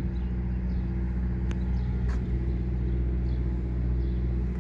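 Scania P230 truck's five-cylinder diesel engine idling steadily.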